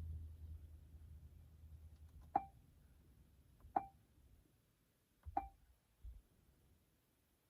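Three faint, short clicks, each with a brief beep-like tone, about a second and a half apart. They sound like button or screen presses. Under them is a low hum that fades away in the first two seconds.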